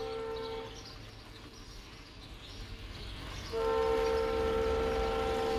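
Locomotive horn of an Indian Railways train: a steady single-pitch blast that stops less than a second in, then a second, louder and longer blast from about three and a half seconds in, over a low rumble.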